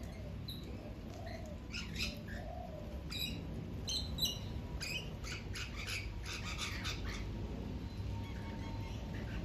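Rainbow lorikeets screeching: a rapid run of short, harsh calls through the middle, with softer, lower calls near the start, over a steady low background rumble.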